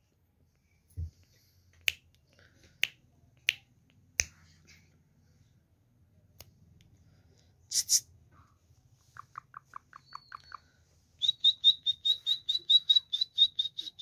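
Indian ringneck parakeet calling in a fast, high chattering trill of about seven notes a second over the last three seconds, after a shorter run of lower, quicker pulses. Earlier come four sharp clicks a second or less apart and a brief hiss.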